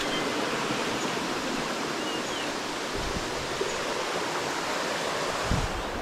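Steady, even rush of water from a stream spilling over the edge of a waterfall.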